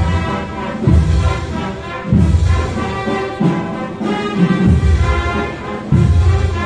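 Brass band with drums playing a slow processional march: sustained brass chords over a heavy low beat that falls a little more than once a second.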